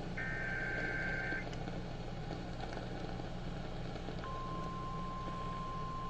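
A burst of Emergency Alert System SAME header data, a harsh warbling digital screech lasting about a second, then about four seconds in the single steady tone of the National Weather Service warning alarm begins and holds. Underneath is AM radio hiss and hum.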